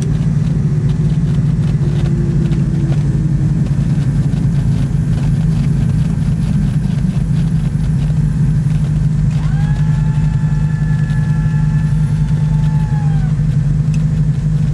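Twin piston engines and propellers of a Cessna 320 Skyknight droning steadily inside the cockpit, with a faint tone sinking in pitch over the first few seconds. About nine and a half seconds in, a cockpit warning horn sounds as one steady tone for about four seconds.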